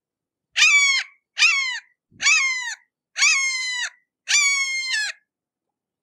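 Red-shouldered hawk calling five times in a row: screaming calls, each under a second long, the pitch sliding down at the end of each.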